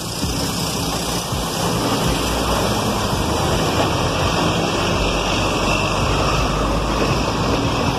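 Busy city street noise: a steady rush of road traffic with no clear single event, and a low rumble growing stronger about five seconds in.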